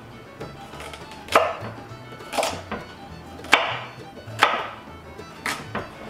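Chef's knife chopping carrots on a wooden cutting board: about five sharp chops, roughly one a second, with a couple of lighter taps between them.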